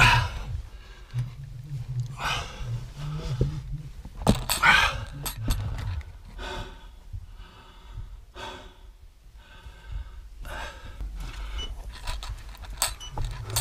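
A person breathing hard, one loud, airy breath about every two seconds, over low rumbling handling noise.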